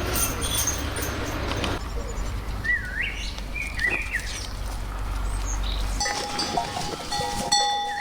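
Farm animal calls: a few short cries that rise and fall in pitch, over a low steady hum that stops abruptly about six seconds in.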